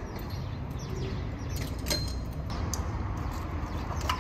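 Street ambience: a steady low traffic rumble with a few light clicks from a bicycle being handled at a rack, and one brief high chirp about two seconds in.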